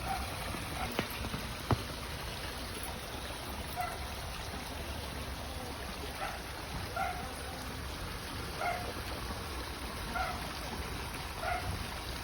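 Short animal calls repeating about once a second from about halfway through, over a steady low outdoor rumble and hiss. A sharp click comes near the start.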